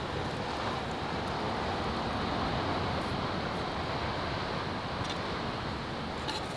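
Steady wash of sea surf and wind, swelling slightly midway, with a couple of faint clicks near the end.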